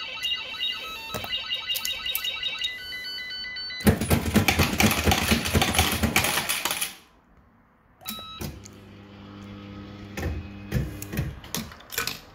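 Bell-Fruit Firecracker fruit machine: an electronic bleeping tune for the first four seconds, then about three seconds of rapid clattering as the win is collected and the tokens are paid out. After a short pause come a few clicks over a steady low hum.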